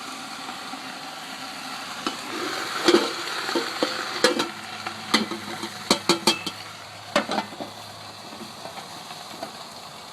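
Bok choy sizzling and steaming in a covered wok just after a splash of water. Sharp clinks and knocks of cookware sound now and then in the first three quarters, and the hiss dies down near the end.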